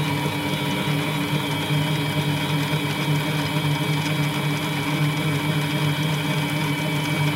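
Mini lathe running steadily under power, its motor and gears giving a constant hum and whine, while a knurling tool rolls a pattern into an oiled brass bushing.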